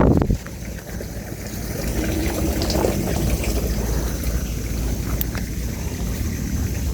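Wind rumbling on the microphone outdoors, with a sharp knock right at the start and a few faint clicks.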